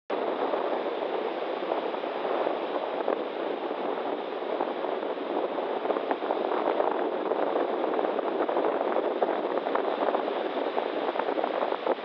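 Storm waves breaking and washing up a beach: a steady rushing hiss of surf dotted with many small crackles.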